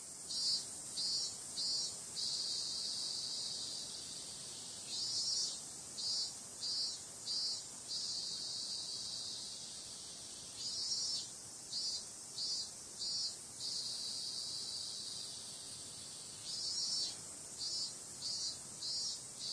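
Cicadas singing: a steady high-pitched buzz, with a repeating song phrase of one longer pulse followed by several short pulses, recurring about every five to six seconds (four phrases).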